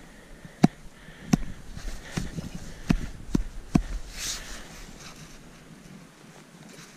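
Axe chopping at meat bait in the snow: about six sharp blows over the first four seconds, then a brief scraping rustle and quieter handling.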